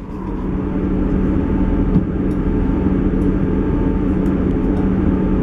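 Inside the carriage of a Class 158 diesel multiple unit under way: a steady low drone of engine and running gear with a constant hum. There is one light knock about two seconds in.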